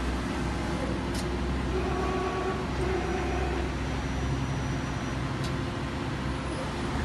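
Hitachi Seiki HT20SIII CNC lathe running: a steady machine hum and whir, with faint held tones rising and falling in the middle and two faint ticks.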